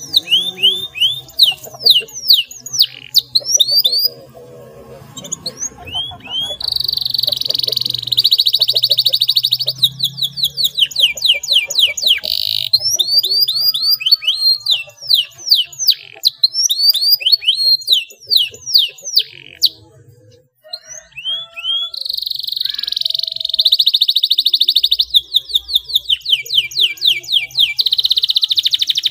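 Domestic canary singing a long song in full voice, made of fast trills of sweeping notes and long rapid buzzing rolls. The song breaks off briefly about four seconds in and again at about twenty seconds.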